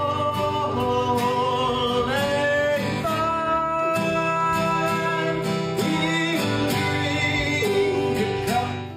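Background music: held melody notes over a steady bass line, fading out near the end.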